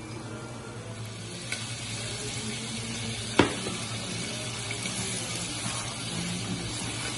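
Ground beef keema sizzling in a pot while it is stirred with a spatula, with one sharp knock a little before halfway through.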